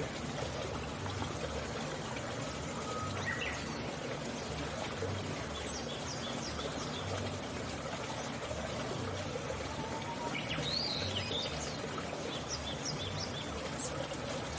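Small birds chirping in short, high calls, busiest near the middle and late on, over a steady trickling, water-like hiss.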